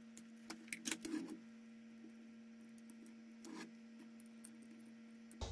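Faint clicks and rubbing of a small plastic multi-pin balance connector being pulled out and plugged back into a battery pack's board: a few small clicks in the first second and a half and one more about three and a half seconds in, over a faint steady hum.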